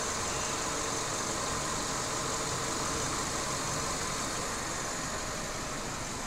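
Citroën C5 (first-generation facelift) 2.0 engine idling steadily, heard from outside at the front grille, with an even hum and hiss and no change in speed.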